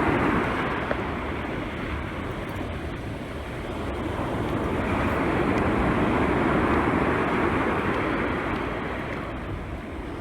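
Storm surf rushing and washing in, mixed with wind buffeting the microphone: a steady roar of noise that swells in the middle and eases toward the end.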